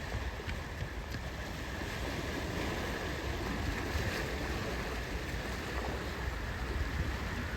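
Steady sea surf and wind, with wind rumbling on the microphone.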